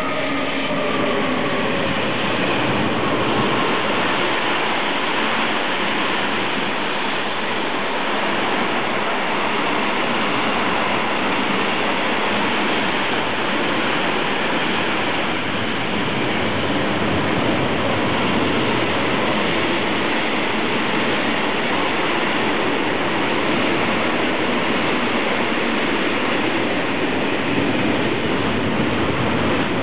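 Freight train passing close by: an electric locomotive goes past with a faint falling whine in the first couple of seconds, then a long string of wagons carrying truck trailers rolls by with a steady rush of wheels on rail.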